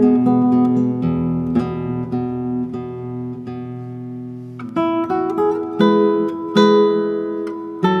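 Acoustic guitar music: plucked notes ringing over a sustained chord, then a new phrase of plucked chords striking in a bit past halfway.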